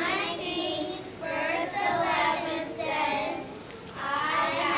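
A worship song sung by high, child-like voices in phrases about a second long, with short breaks between the lines.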